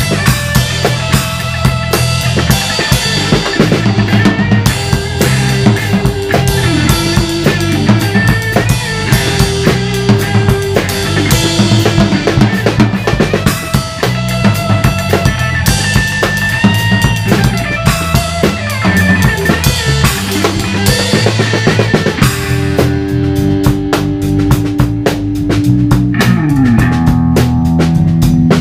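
Live instrumental blues jam on electric guitar, bass guitar and drum kit, with the drums loud and close: kick, snare and rimshots under guitar and bass lines. In the last few seconds the band holds long sustained notes, one sliding down in pitch, over rapid drum hits.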